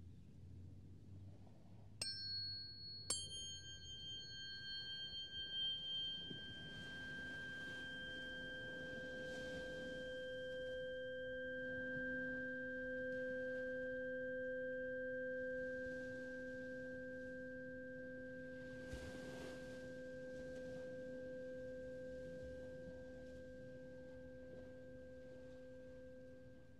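Tuning forks struck twice in quick succession, then ringing with pure, high, sustained tones. About six seconds in, a deeper pair of tones an octave apart swells in and holds steady, while the high ring slowly fades.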